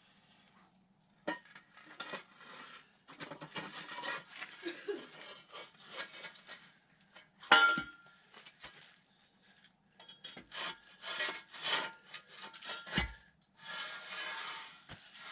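Irregular scraping and rubbing with scattered clicks as a truck camper is jacked up off the truck, with a sharp knock about halfway through and a dull thud a little later.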